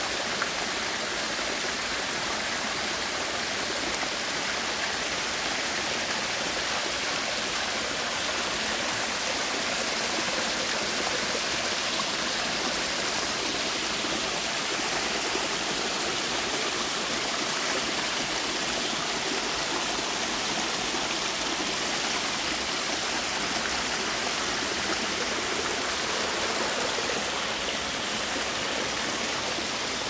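Mountain stream running over rocks in small cascades: a steady rushing and splashing of water.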